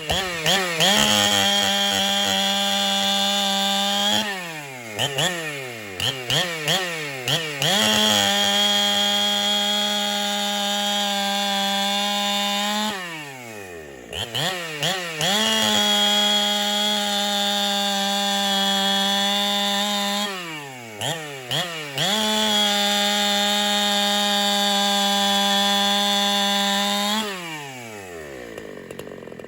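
Chainsaw with a Husqvarna X-Cut C83 chain cutting cookies off a log. It makes four long runs at full throttle, each dropping back toward idle, with quick blips of the throttle between cuts, and settles to idle near the end.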